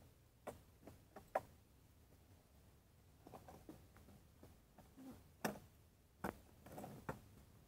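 Kick scooter knocking against the pavement during tricks: a few scattered sharp clicks and knocks, the loudest about a second and a half in, over a faint background.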